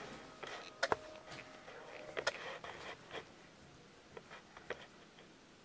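Faint, scattered taps and rustles of a child's hand on the pages of a picture book, with a few sharp clicks about a second in and again past two seconds.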